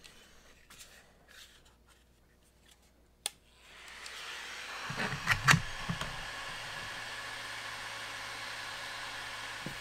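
Chamber Chiller battery-powered barrel cooler: a sharp click about three seconds in, then its fan starts and runs with a steady whir and a low hum, blowing air through the rifle's barrel from the chamber. A few knocks near the middle come as it is seated in the rifle's open action.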